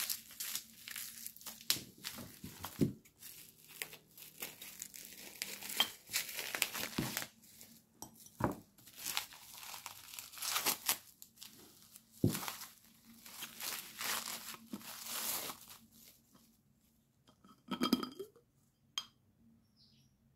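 Bubble wrap crinkling and rustling in irregular handfuls as small glass jars are unwrapped from it, quietening after about sixteen seconds. Near the end come a few light clinks of glass.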